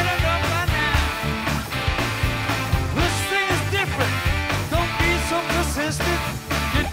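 Rock band playing live, with electric guitar, bass guitar and drums, and short bending notes over a steady beat.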